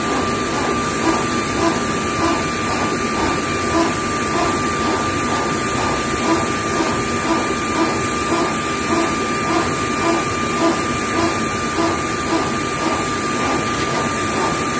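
Steady mechanical running noise with a constant high whine and a soft regular pulsing about two to three times a second.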